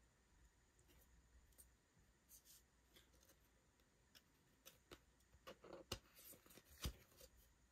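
Faint clicks and rustles of a stack of glossy trading cards being slid and flipped through by hand, busier in the second half with a sharper click near the end.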